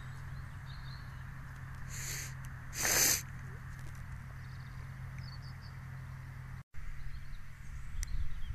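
Massey Ferguson 6465 tractor and Vicon RF 2235 round baler running in the distance, a steady low hum under wind hiss. A short loud hiss about three seconds in, and the sound drops out for a moment near the end.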